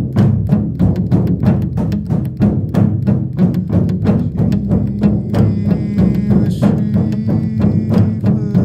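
Shamanic frame drum beaten in a fast, even rhythm, its deep resonance sustained under the strokes. A high ringing tone joins about five seconds in.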